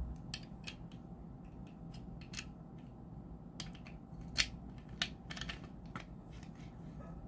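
Steel key sliding into the brass cylinder of a T-Rex CM830C steering wheel lock and working it, with scattered sharp metallic clicks, the loudest about four seconds in.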